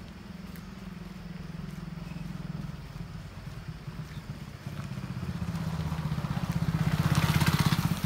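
Small motorcycle engine running at low speed with a rapid pulsing beat, getting louder in the second half, with a rushing noise added near the end.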